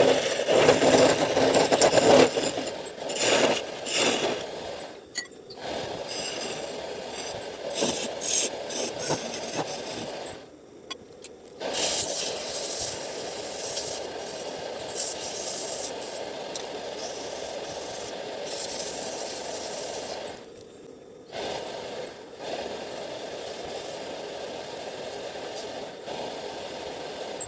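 A hand tool scraping and rasping against wood in a continuous rough noise. It is loudest at the start and stops briefly twice, about ten and twenty seconds in.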